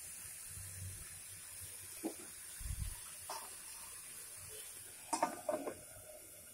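A steel spoon scraping and knocking against a kadai while chopped ridge gourd, onion and tomato are stirred, then a few sharp ringing clinks about five seconds in as a glass lid with a steel rim is set down on the pan. A faint steady hiss runs underneath.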